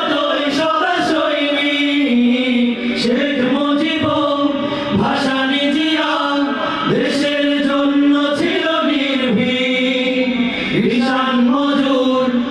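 Male vocal group singing a Bengali Islamic ghazal (nasheed) together through microphones, holding long notes that glide from one pitch to the next.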